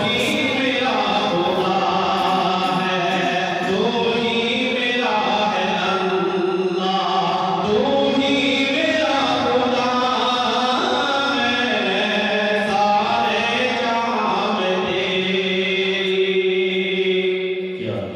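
A man chanting Urdu devotional verse unaccompanied, in long held notes that glide from pitch to pitch.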